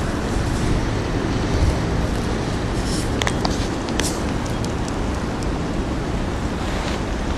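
Blizzard wind blowing hard and steadily across the microphone, a rushing noise with a heavy low rumble, with a few faint clicks about three and four seconds in.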